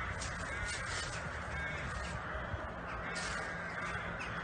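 Crows cawing, with short rustles of footsteps through dry fallen leaves.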